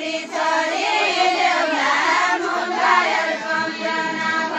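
A group of high women's voices singing a Nepali deuda folk song together, several voices overlapping, with long held notes in the second half.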